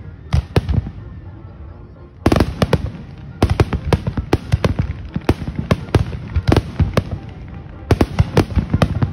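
Fireworks display: aerial shells bursting in rapid bangs. There is a short lull about a second in, then a dense barrage resumes a little after two seconds and keeps going.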